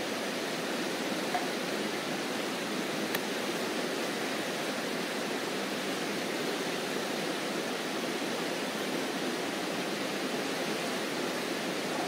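Steady rushing of a fast-running river swollen with snowmelt, with a faint knock about three seconds in.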